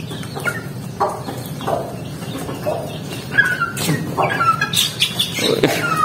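A flock of young hens clucking and chirping in short repeated calls, several of them falling in pitch, while two of the hens fight; a few sharp knocks come about four to five seconds in.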